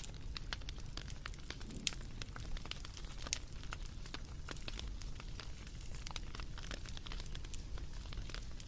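Wood fire crackling: dense, irregular snaps and pops over a low steady rumble, with a couple of sharper pops about two and three seconds in.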